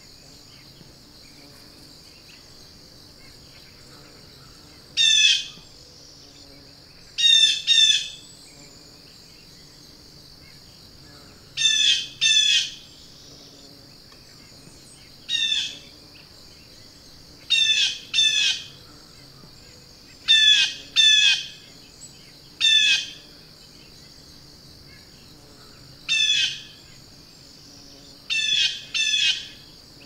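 Blue jay giving short, loud calls, singly or in pairs every two to four seconds, about fourteen in all, over a steady high-pitched drone of insects.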